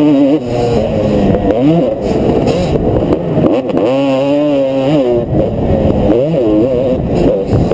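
Motocross dirt bike engine heard close up from the rider's helmet, revving hard and falling back several times as the throttle is worked and gears change through a turn and down a straight.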